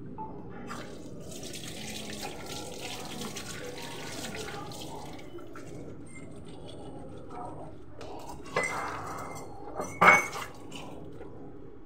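Water running from a tap into a sink during washing up, then two clattering knocks of dishes in the sink, the second louder and ringing briefly.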